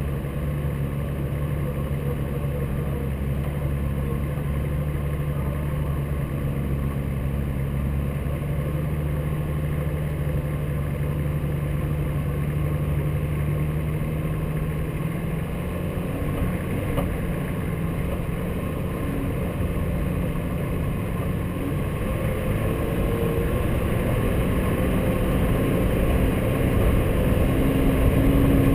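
A 4x4 off-road vehicle's engine running as it drives along a snowy track. Its note changes about halfway through, and it gets louder near the end.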